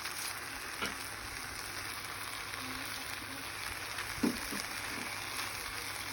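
Rice, onions and black beans frying in oil in a pot with a steady sizzle, broken by two light knocks, about one second in and again past four seconds.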